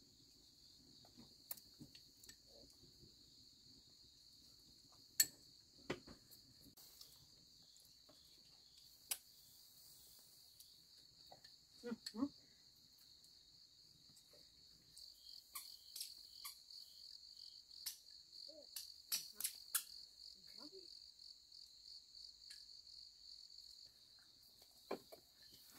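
Faint, steady high-pitched chirring of insects, with scattered short knocks and clicks.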